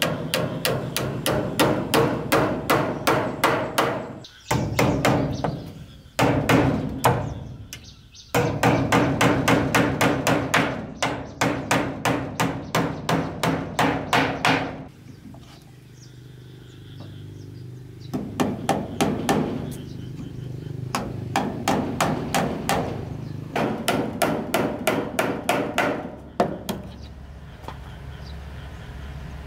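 Hammer striking wood in runs of quick, even blows, about four a second, with short pauses between runs. The blows are fainter in the second half.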